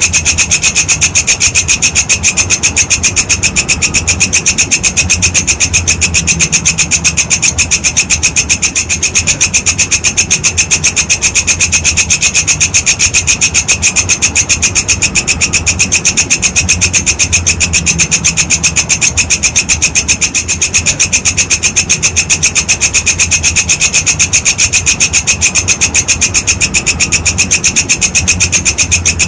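Walang kecek grasshopper stridulating: a shrill, rasping call made of a fast, even train of pulses that keeps going without a break.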